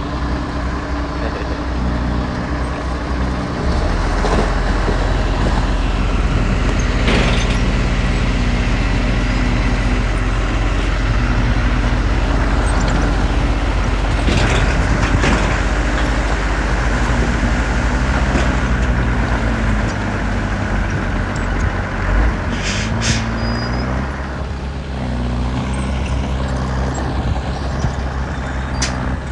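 Heavy diesel engines of a bulldozer and dump trucks working, the engine note rising and falling with load. A few brief metallic clanks, and a short high squeal about 23 seconds in.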